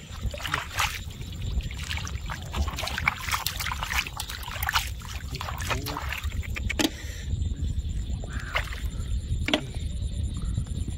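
Hands digging in wet mud at the waterline while hand-digging for mud clams: rapid sloshing and splattering of mud and water, with many short wet splashes that thin out after about seven seconds into a few sharper separate ones. A steady low rumble runs underneath.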